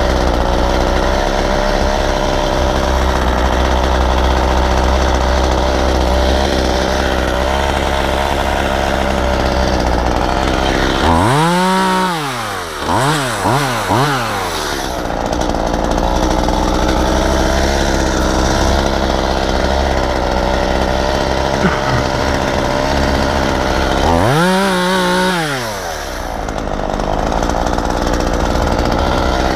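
Chainsaw running at high revs and cutting wood. Twice, about a third of the way in and again near the end, the throttle is let off and blipped, so the engine pitch swings down and up.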